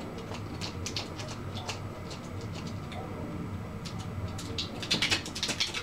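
Scissors snipping through duct tape: a run of short, crisp cuts that comes thicker and louder near the end.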